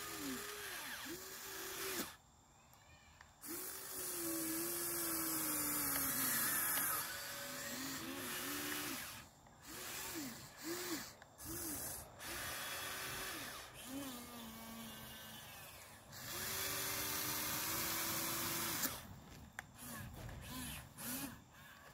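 Huina 1593 RC excavator's electric motors whining as the turret, boom and arm are worked, in short bursts and a few longer runs, the pitch rising and falling as each motor starts and stops.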